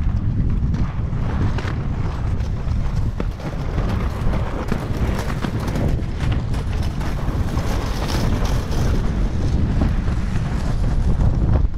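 Wind noise on the microphone of a moving camera, mixed with inline skate wheels rolling over concrete paving, with scattered clicks.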